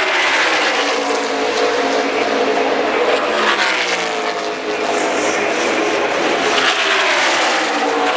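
A pack of NASCAR Cup stock cars with V8 engines passing at racing speed. Their engine note falls in pitch as cars go by near the start and again near the end.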